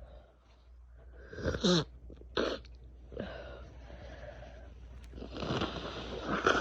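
A woman with a head cold sneezing and sniffling: a short voiced sneeze about one and a half seconds in, then a couple of quick sniffs, then a longer rough snuffling breath through the nose from about five seconds in.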